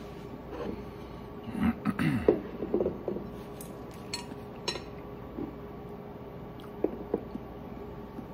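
Tableware clattering and knocking as a ceramic plate, rice bowl and small glass dish are picked up and cleared from a wooden table, busiest a second or two in, followed by a few single sharp knocks.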